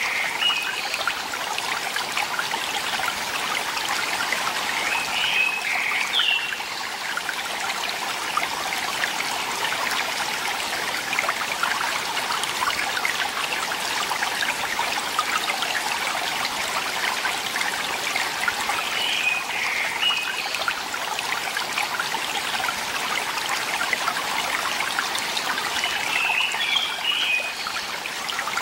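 A rocky mountain stream rushing and splashing steadily. A small bird chirps briefly four times over it.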